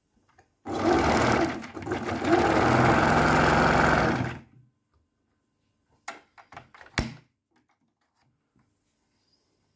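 Singer 367 sewing machine running, stitching through layered denim for about four seconds with a brief slowdown partway, then stopping. A few sharp clicks follow about two seconds later.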